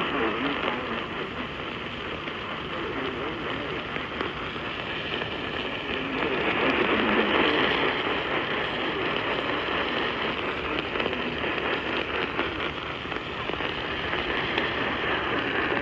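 Static hiss from a weather radio receiver tuned to a weak, noisy NOAA Weather Radio signal.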